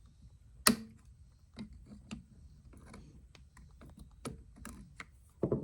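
Scattered clicks and light knocks from handling the small plastic and metal parts and fuel hoses of a generator carburetor. There is a sharp click under a second in, and a few louder knocks come close together near the end.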